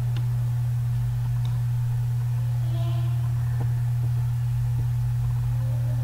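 A steady low hum runs throughout, with a few faint clicks.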